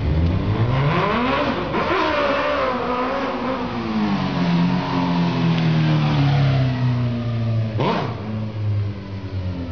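Suzuki GSX-R sportbike's inline-four engine revving up and dropping back, then running at a lower, slowly falling pitch as the bike rides along the street. A brief sharp crack about eight seconds in.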